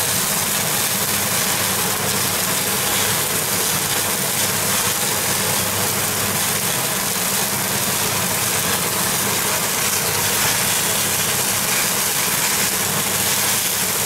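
Kitchen range hood extractor fan running steadily at a high setting, a constant even whoosh of moving air.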